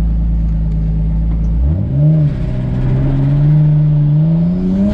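Nissan S14's RB25 straight-six engine running with a steady low note, then revving up sharply a little under two seconds in, easing back, and pulling with a steadily rising pitch to the end.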